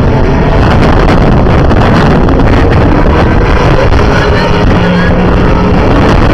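Race car engines from a pack of GT and sports-prototype cars running together on a tyre warm-up lap: a loud, dense mix with single engine notes briefly standing out, over wind noise on the microphone.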